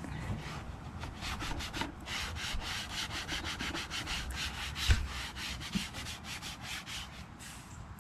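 Cloth rag rubbed briskly back and forth over the textured plastic hood and bumper of a lawn tractor, making a quick, even series of rubbing strokes. The rag is wet with automatic transmission fluid. A single low thump comes about five seconds in.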